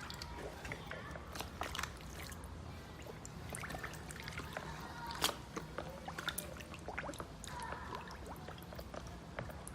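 Water trickling and splashing around a keyboard being soaked in a waterproof test, with many small irregular drips and splashes and one louder splash about halfway through.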